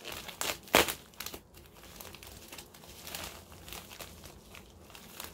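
Plastic USPS shipping mailer crinkling as it is pulled open by hand. The loudest, sharpest rustle comes just under a second in, followed by softer, irregular crinkling.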